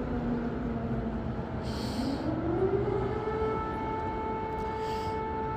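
Air raid siren wailing: it holds a low note, then rises smoothly about two seconds in to a higher note and holds it, over steady background noise.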